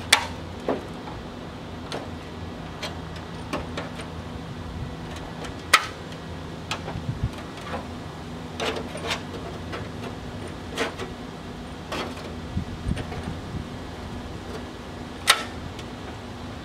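Scattered sharp metallic clicks and ticks from flat-jaw pliers working the edge of a steel patch panel, folding the flange, with two louder clicks about six seconds in and near the end. A steady low hum runs underneath.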